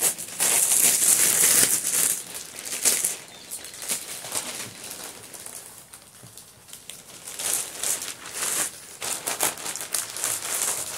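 Thin plastic packaging bag crinkling and rustling as a folded cloth dish towel is slid into it and the bag is handled. It is loudest in the first two seconds, dies down in the middle, then comes back as scattered crinkles near the end.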